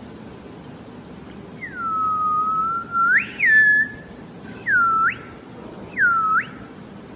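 A person whistling: a long low note that slides up sharply at its end, a short higher note, then two quick notes that each dip and sweep steeply upward.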